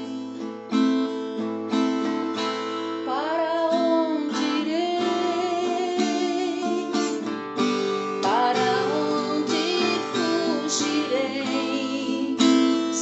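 Music: strummed acoustic guitar with a wavering melody line over it, the lead-in of a devotional song.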